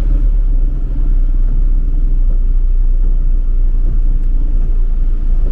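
Steady low rumble inside the cab of an Isuzu Traviz truck driving through floodwater.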